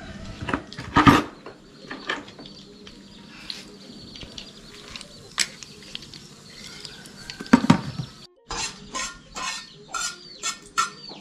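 Metal spatula clinking and scraping against a frying pan and a plate, over a faint sizzle of hot oil. The clinks come singly at first, loudest about a second in, then as a quicker run of scrapes near the end.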